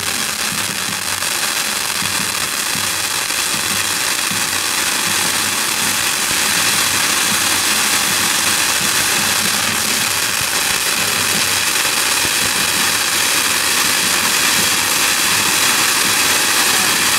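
Several ground fountain fireworks spraying sparks with a steady hiss that grows a little louder over the first several seconds.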